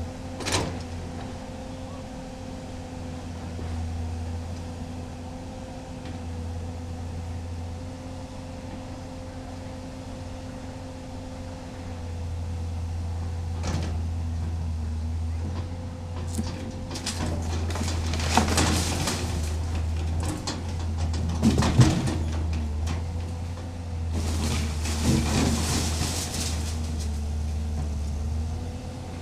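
Hydraulic excavator's diesel engine running steadily while its bucket works demolition debris of wood and corrugated metal roofing sheets. There is a sharp knock just after the start and another about halfway through, then long bursts of clattering and crashing debris in the second half.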